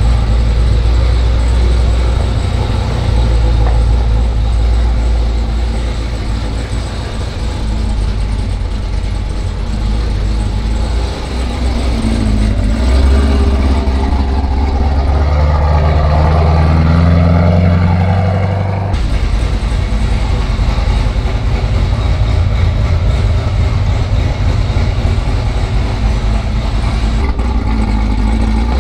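Fereday-built ZL1 Camaro's supercharged 6.2-litre V8 running at idle, loud and deep. About halfway through it is revved once, the pitch climbing slowly for several seconds before dropping off suddenly back to idle.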